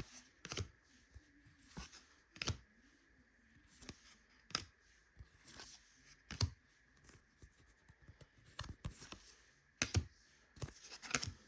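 Trading cards being handled at a table: short, quiet clicks and taps at irregular intervals as cards are flicked through and set down on stacks.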